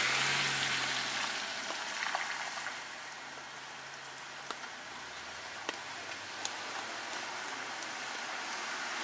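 Steady rain hissing on a wet street, with a car passing close at the start, its tyres hissing through the water and its engine humming low as it fades over the first few seconds. A few light ticks sound through the rain.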